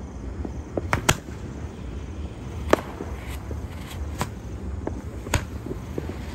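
Aerial fireworks going off: a series of sharp bangs at irregular spacing, about five loud ones, two of them close together about a second in, with a brief faint hiss between the bangs.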